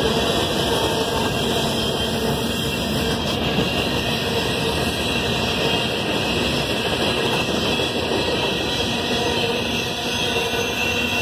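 Freight cars of a Norfolk Southern manifest train rolling past: the steady noise of steel wheels on the rails.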